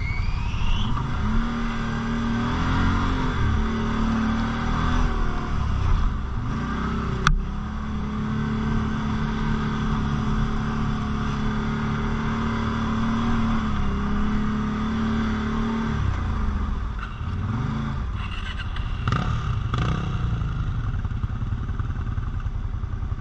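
Quad bike (ATV) engine running under throttle while ridden off-road, its note rising and falling, then holding steady for several seconds. A single sharp knock comes about seven seconds in, and there are quick revs near the end.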